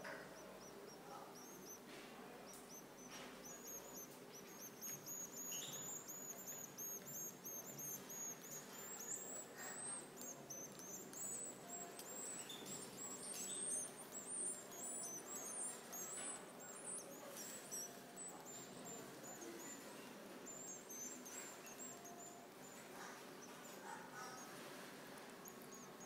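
European goldfinch nestlings give thin, high-pitched begging calls in rapid series while being fed. The calls are densest in the middle and thin out near the end, over a faint steady hum.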